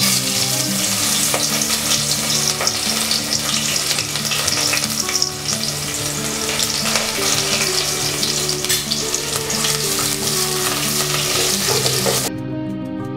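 Chopped onions frying in hot oil and ghee in an aluminium pot, a loud sizzle that starts at once as they go in, stirred with a wooden spatula near the end. The sizzle cuts off suddenly shortly before the end, leaving soft background music.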